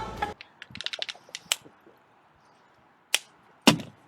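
A quick run of light, sharp clicks for about a second, then a pause and two louder clicks about half a second apart.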